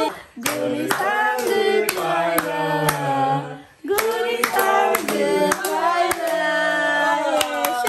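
Several people singing together and clapping their hands about twice a second; the singing breaks off briefly near the start and again just before four seconds in.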